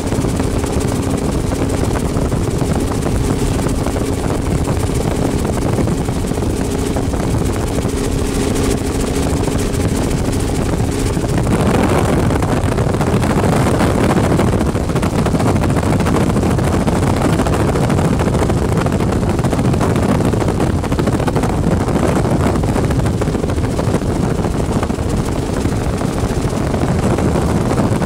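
Helicopter engine and rotor running steadily in flight, with a steady hum at first. About eleven seconds in, a louder rushing noise takes over and the steady tones drop away.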